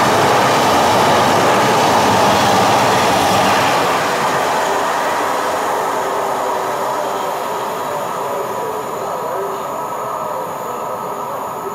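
Great Western Railway Class 800-series IET train passing through and running away: a loud rush and rumble of wheels on rail for about the first four seconds, then fading steadily as it recedes.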